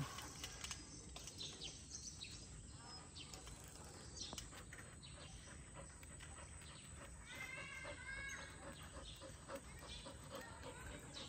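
Faint outdoor ambience with birds chirping now and then, the clearest a short run of repeated chirps about seven seconds in.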